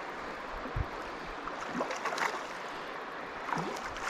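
Steady rush of flowing river water, with a brief low thump about a second in.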